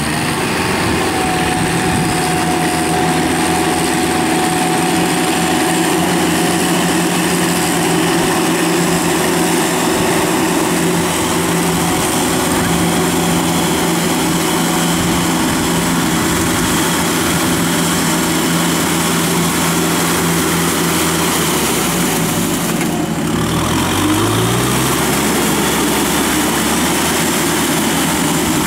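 Kubota tractor's diesel engine running steadily as the tractor drives its iron cage wheels through a flooded rice paddy. About three-quarters of the way through, the engine note dips and then rises again.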